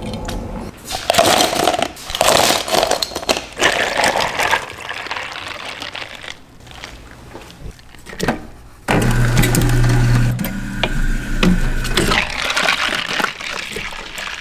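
Scattered knocks and clatters of drink preparation. About nine seconds in, an automatic cup-sealing machine starts with a sudden steady low hum and runs on as it seals a film lid onto a plastic cup.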